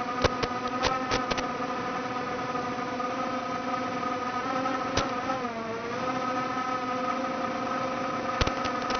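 Micro FPV quadcopter's four 1104 4000kv brushless motors and propellers whining steadily in flight, the pitch dipping briefly about five and a half seconds in. Several sharp clicks in the first second and a half and again near the end.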